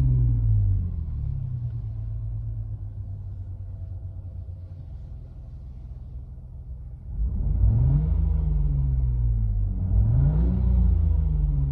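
Simulated car engine sound from the Renault R-Link engine sound effect. The note settles from a falling rev into a steady idle hum, then about seven seconds in it revs sharply up and back down twice, starting a third rise at the end.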